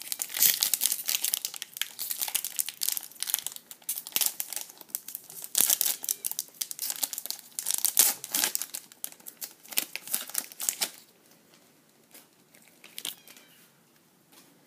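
Foil wrapper of a trading-card pack crinkling and tearing as it is opened and handled: a dense run of crackling for about eleven seconds, then only light rustling.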